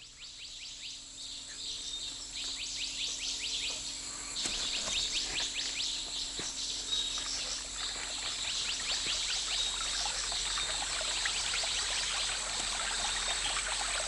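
Forest ambience fading in: a dense chorus of rapid, repeated high chirps from forest insects and birds over the steady rush of running stream water.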